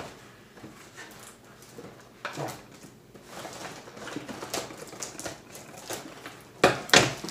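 Toy packaging being handled and pulled apart: scattered light clicks and taps, with two sharp knocks near the end.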